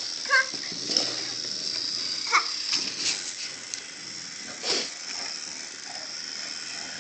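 Wooden toy train pieces and track clicking and knocking as they are handled on a train table, with a couple of brief sounds from a toddler's voice, over a steady hiss.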